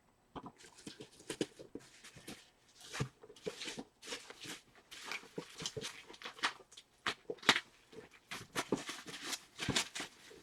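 Packaging being handled during an unboxing: a dense, irregular run of crinkling, rustling and light taps from cardboard and plastic.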